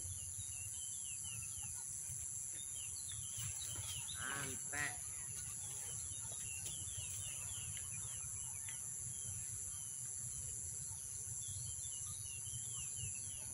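Pond-side evening ambience: a steady high-pitched insect drone with many quick bird chirps over it and a low rumble underneath. A brief faint call stands out about four seconds in.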